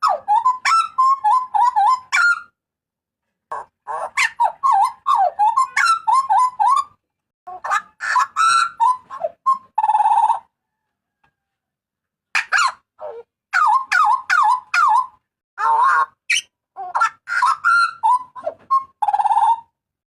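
Hooded butcherbird (burung jagal papua) giving loud, harsh calls. The calls come in bouts of rapid, bending notes, broken by short pauses.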